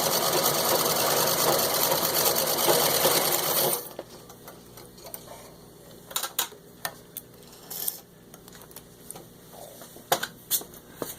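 Antique 1910 Singer Model 27 sewing machine running at full speed, stitching through six layers of denim, then stopping suddenly about four seconds in. Scattered clicks and knocks follow.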